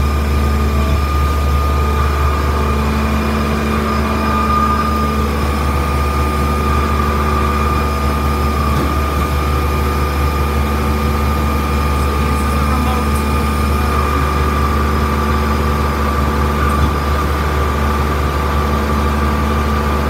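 Concrete boom pump truck running during a pour: a steady heavy diesel engine drone with a constant high-pitched whine over it.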